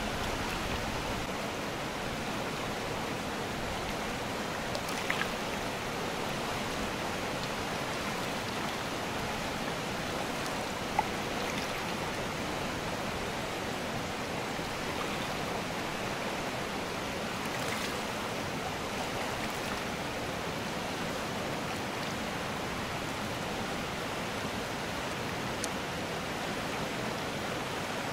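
Fast mountain river, the Bashkaus, rushing steadily over rocks and riffles. A few faint short clicks are heard, the sharpest about eleven seconds in.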